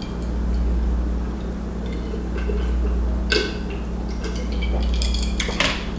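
A man drinking from a glass jar: swallows and a few short clicks of glass, over a steady low hum.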